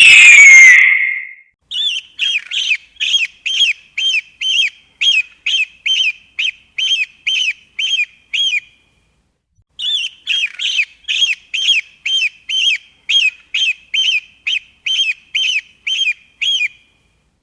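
Eagle calling: a loud downward-sliding scream at the start, then two long runs of short, falling call notes, about three a second, each run lasting about seven seconds, with a brief break between them.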